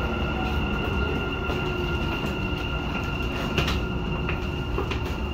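Dubai Metro train running, heard from inside the carriage: a low rumble from the wheels under a steady high whine, with a few sharp clicks and knocks from about three and a half seconds in.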